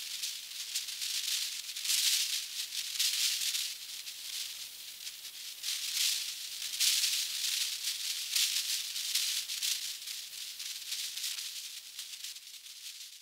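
A shaker-like rattling hiss, all in the high pitches with nothing underneath, swelling and easing every second or two and fading near the end.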